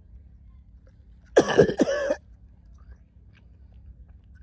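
A person retching: one loud, strained vocal heave in two quick parts, about a second long, a little over a second in.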